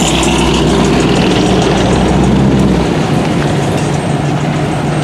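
Chevrolet Malibu's engine running as the car pulls away. Its deep rumble drops out about three seconds in, leaving the steady engine sound of passing street traffic.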